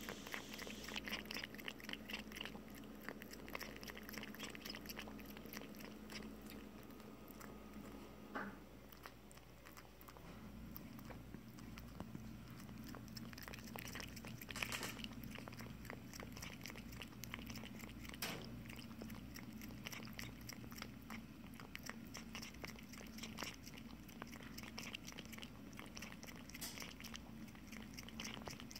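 A cat lapping milk from a cereal bowl: a quick, steady run of faint wet licks, with a couple of louder clicks. A steady low hum runs underneath and changes pitch about eight seconds in.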